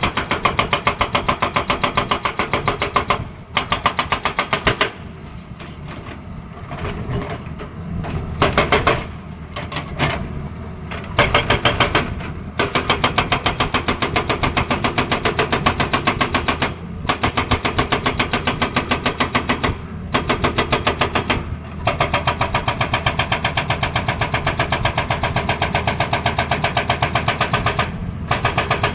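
Hydraulic breaker hammer on a Tata Hitachi excavator pounding in rapid, steady blows, with the excavator's engine running underneath. It stops briefly several times, and there is a quieter stretch a few seconds in.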